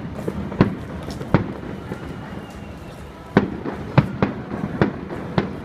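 Aerial firework shells bursting with sharp bangs, about six in all: two in the first second and a half, then after a pause four more in quick succession.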